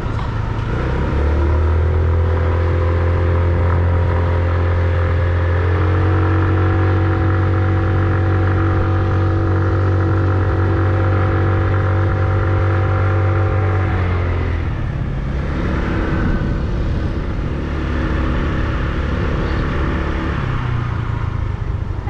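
Motorcycle engine running while riding, its note holding steady and then shifting in steps as the throttle and speed change, about a second in, near six seconds, near fourteen and a half seconds and near the end.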